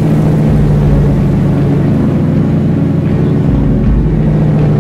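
A car engine running at a steady speed, a low even drone with little change in pitch.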